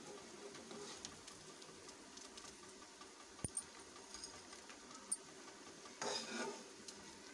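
Faint kitchen handling noise: a single sharp click about halfway through, then a brief rustling clatter near the end as more fried spiny gourd slices are tipped onto the pile.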